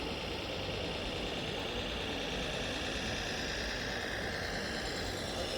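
Steady whine of radio-controlled model truck motors and gearboxes, several high tones held over a dense low background rumble, shifting in pitch near the end.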